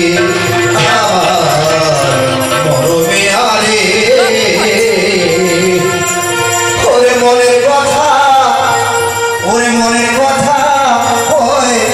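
Live kobi gaan, Bengali folk song: a singer's voice gliding and holding long notes over instrumental accompaniment.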